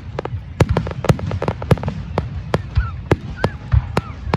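Fireworks display: aerial shells bursting in a rapid, irregular string of sharp bangs, about a dozen in four seconds, some followed by a low rumble.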